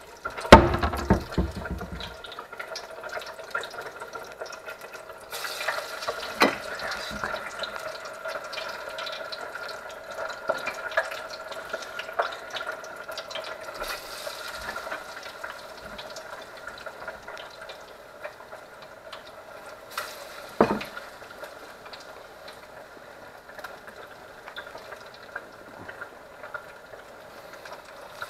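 Beer-battered smallmouth bass chunks deep-frying in an electric deep fryer: the hot oil bubbling and crackling steadily, with scattered sharp pops. A loud knock comes about half a second in.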